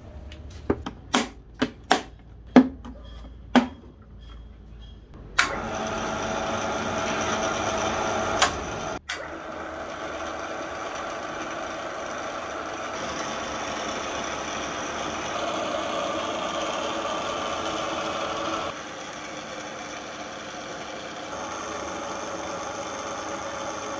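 A handful of sharp clicks, then, about five seconds in, the restored Soviet drill press's electric motor starts and runs with a steady hum. The hum shifts in level a few times.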